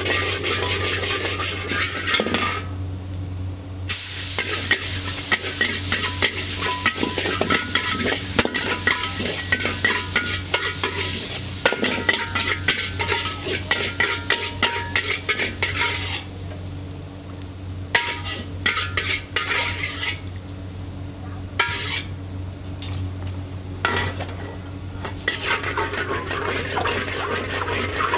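A metal spatula scraping and clanking rapidly against a wok while char kway teow is stir-fried over high heat, with loud sizzling. A steady low hum runs underneath, and the sizzle drops away briefly a few times.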